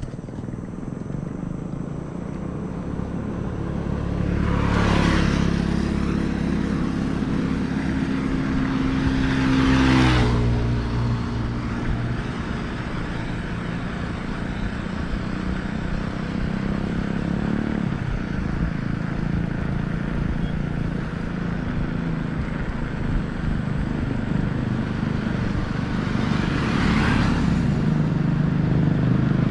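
Bicycle tyres rolling on a road with a steady low rumble. Motor vehicles pass by three times, swelling and fading: about five seconds in, about ten seconds in with a falling pitch, and near the end.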